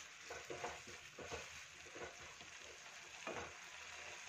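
Faint stirring of a thick masala gravy with a wooden spatula in a kadhai: a few soft scrapes and taps on the pan in the first second or so and one more a little past three seconds, over a faint sizzle of the simmering curry.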